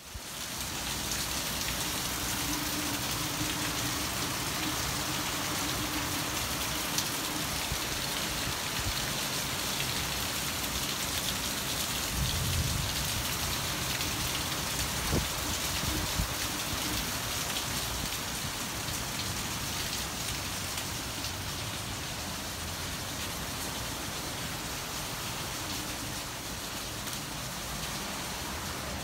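Steady rain falling, a constant even hiss, with a few faint knocks near the middle.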